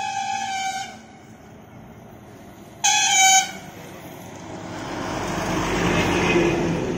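A vehicle horn sounds twice, about three seconds apart, the second blast shorter and louder. Then a bus drives past close by, its engine and tyre noise swelling to a peak about six seconds in and fading.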